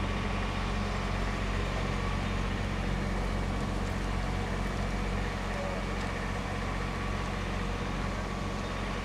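Vehicle engine idling steadily: an even low hum, with a faint steady whine above it.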